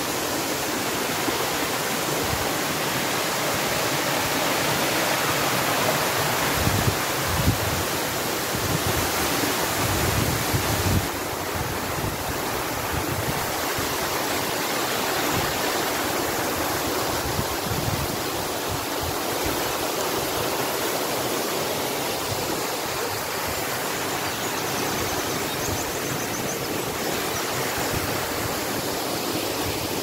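Waterfall pouring onto rocks and into a shallow pool, a steady rush of falling water. A few low rumbles come and go between about 6 and 11 seconds in.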